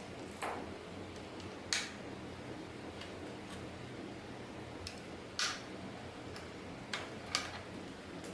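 Light, irregular clicks and taps of small parts and tools being handled, about five in eight seconds, over a faint steady hum.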